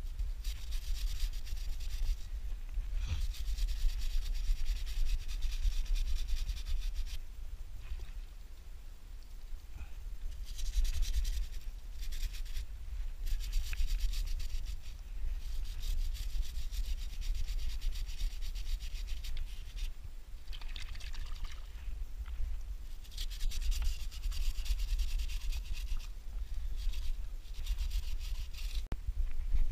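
Bristle chain brush scrubbing a wet, soapy motorcycle drive chain on a Kawasaki ER-6f, a hissing scrub in bouts of a few seconds with short pauses, over a steady low rumble.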